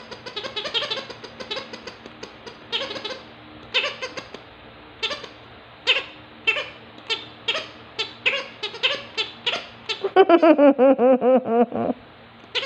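Goat-like bleating: many short pitched cries, then a louder, rapidly wavering cry about ten seconds in that lasts about two seconds.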